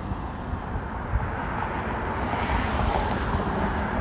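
Jet airliner on low final approach: a steady rushing engine noise that grows slowly louder as the plane comes closer.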